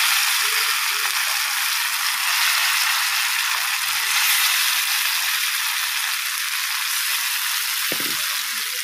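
Masala-coated sardines shallow-frying in hot oil on an iron tava: a steady sizzling hiss as more fish are laid into the pan.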